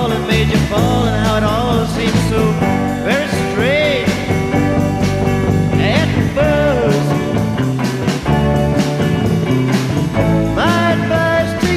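Rock band recording from a vinyl single playing: bass, regular drum hits and a lead line that bends and slides in pitch.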